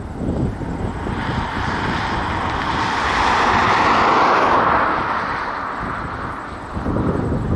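An airliner passing: its engine noise swells, peaks about midway and fades away. Gusty wind buffets the microphone throughout, loudest near the end.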